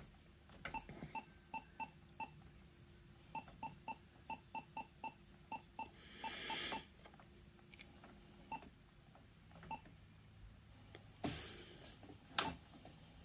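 Atoto F7 touchscreen car head unit giving short key-press beeps as its tuning buttons are tapped, a long irregular run of identical beeps, often two or three a second, played faintly through the one working speaker. A few short bursts of hiss come in between.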